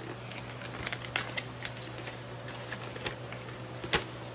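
Paper and packaging being handled and shuffled, with scattered light rustles and clicks and one sharper tap near the end, over a steady low hum.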